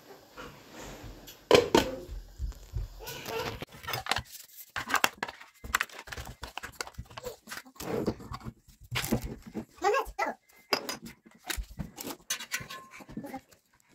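Foil seals being peeled off a plastic yogurt cup and a mayonnaise jar, with plastic crinkling and short clicks and knocks of containers and a spoon.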